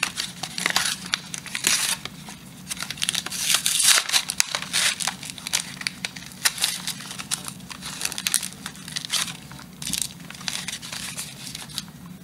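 Packaging of a small trading-card box being torn open and handled, with irregular crinkling, tearing and sharp rustles. It is busiest about three to five seconds in.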